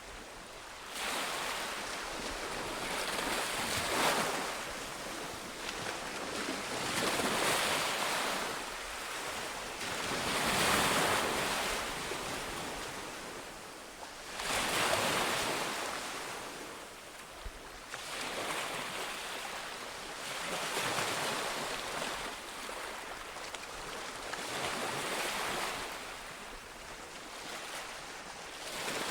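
Ocean surf: waves breaking and washing in, swelling and fading about every three to four seconds.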